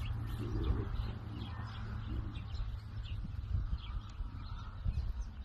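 Small birds chirping repeatedly in short high notes, over a steady low rumble.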